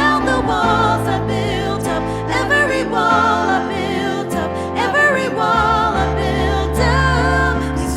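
Worship band playing with several voices singing a wordless melody over sustained chords.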